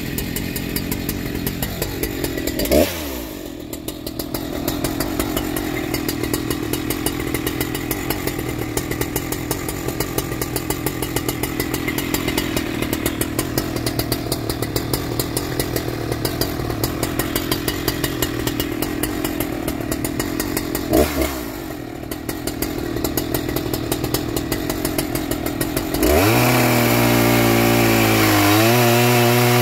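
Husqvarna 3120XP chainsaw, a stock 118.8 cc two-stroke, idling steadily and blipped briefly twice. About four seconds from the end it goes to full throttle and cuts into a large log, much louder, its pitch sagging and wavering under the load of the cut.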